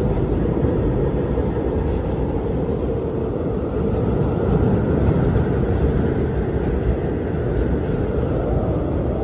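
Howling wind: a steady, deep rush with a faint whistling tone that swells and fades again in the middle.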